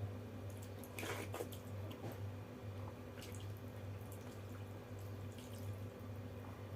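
Hand working soaked rice in its water on a plate: a wet squelching splash about a second in, then small drips and clicks, over a steady low hum.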